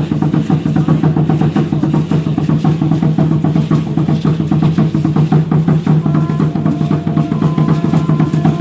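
Music with a busy, fast drum beat and a strong low bass line.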